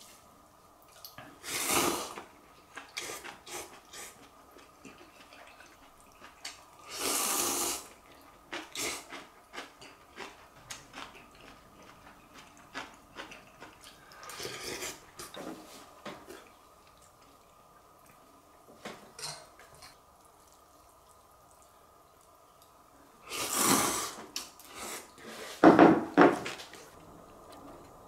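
Eating instant ramen: about five loud, noisy slurps of noodles and broth of about a second each, the last the loudest. Between them come small clicks of chopsticks against a ceramic bowl and steel pot.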